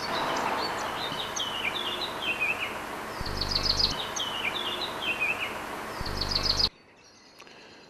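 Songbirds singing over a steady outdoor background hiss: short phrases of quick high notes that step down in pitch, repeated several times. The sound cuts off abruptly near the end.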